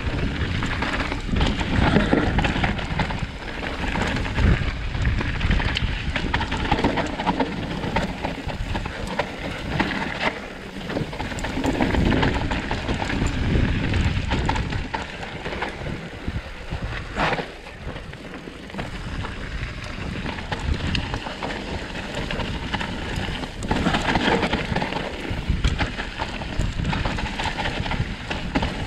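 Trek Slash 8 full-suspension mountain bike descending a rain-soaked trail: steady tyre noise on wet dirt and rock, with the bike rattling and knocking over rough ground. One sharp knock stands out about 17 seconds in.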